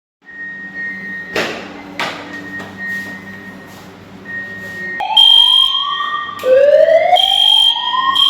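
Fire alarm system under test. An on-off high beeping tone and two sharp clicks come first; about five seconds in, the alarm sounders start a rising whoop tone, sounded twice, over a steady high-pitched tone.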